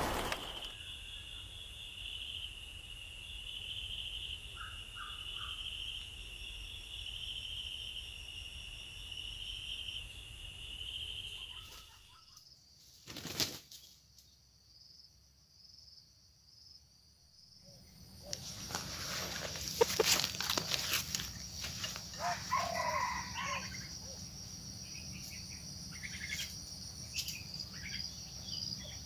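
Outdoor ambience dominated by a steady high-pitched insect drone. It cuts out about twelve seconds in, and a single knock follows. After a quieter stretch a higher insect drone comes in, with rustling and a few short bird calls.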